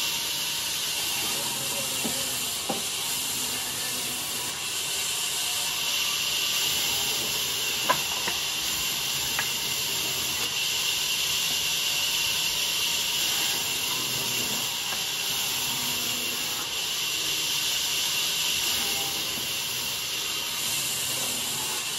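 Large vertical bandsaw running and cutting through log sections, a steady high hiss of the blade in the wood, with a couple of short knocks, the sharpest about eight seconds in.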